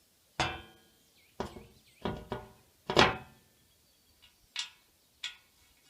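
Metal pergola arch clanking and knocking as it is lifted and set in place over a mounting stud: about seven sharp knocks with a short ringing tail, the loudest about three seconds in.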